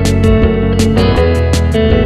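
Instrumental music led by guitar, with a steady beat.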